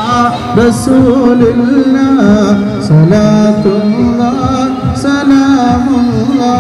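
A devotional nabidina song: a single voice sings an ornamented melody with wavering, sliding held notes over repeated drum strokes.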